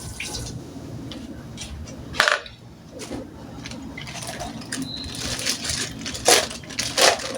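Scattered clinks and knocks of kitchen handling over a steady low background, the sharpest knock about two seconds in and two more near the end.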